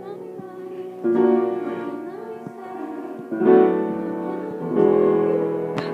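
Upright piano being played: chords struck about a second in, again past three seconds and near five seconds, each ringing on and fading.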